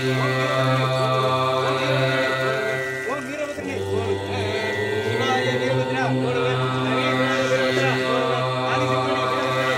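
Devotional mantra chanting over a steady drone of held tones.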